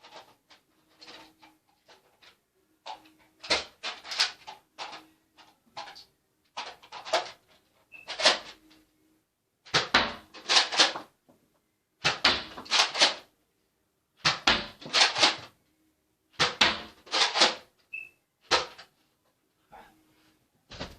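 Hard plastic clacks and rattles from a Nerf blaster being handled and reloaded, in short clusters of two or three every second or two.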